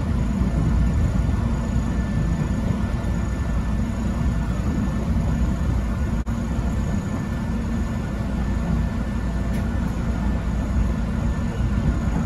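Steady rumble of an electric train running along the track, heard from inside the leading car behind the driver's cab. There is a momentary dropout about halfway through.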